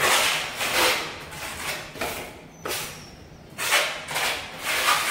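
Metal putty knife scraping and spreading wall putty across a plastered wall in repeated rasping strokes, about one or two a second.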